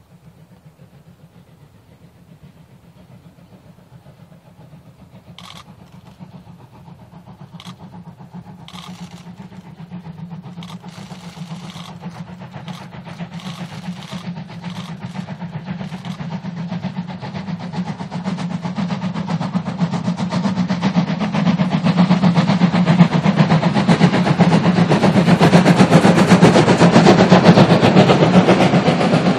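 Steam-hauled train double-headed by DR class 01 two-cylinder Pacifics, their exhaust beats running together into fast chuffing. It grows steadily louder as the train approaches and peaks as it draws level near the end.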